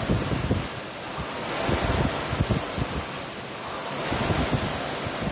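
Concept2 indoor rowing machine's air-resistance flywheel whooshing, surging and fading with each stroke about every two and a half seconds at a steady 24–25 strokes a minute, with light knocks throughout.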